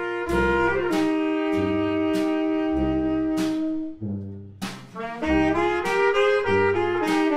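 A small trad-jazz party band playing: sousaphone bass notes pulse on the beat under held horn lines. The band breaks off briefly about four seconds in, then comes back in.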